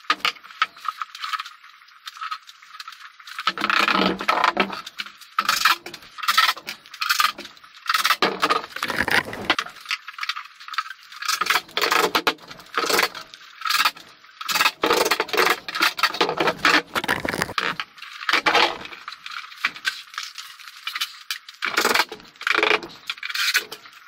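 Steel bar clamps and tools clinking, rattling and knocking as they are handled on a plywood workbench, in many quick irregular clatters while a glued face frame is clamped up.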